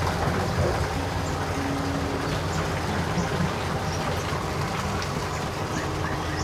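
Garden fountain running, a steady rushing of water, with a few faint bird chirps over it, a small cluster of them near the end.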